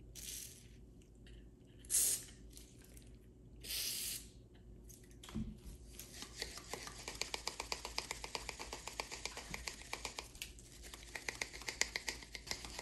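Three short hisses of WD-40 aerosol sprayed through its straw nozzle into the pliers' pivot, followed by a long run of rapid, gritty metal clicks as the lineman's pliers are worked open and shut over and over, grinding the pivot loose with valve grinding compound.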